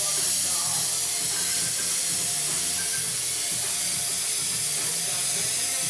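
Airbrush spraying with compressed air: a steady, high hiss.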